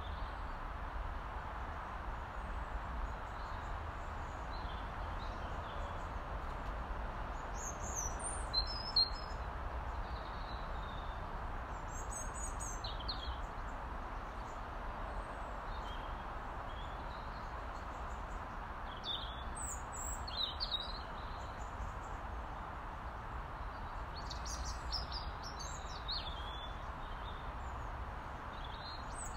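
A robin calling in brief, high, thin phrases that come in four spells a few seconds apart, over a steady background hiss and low rumble.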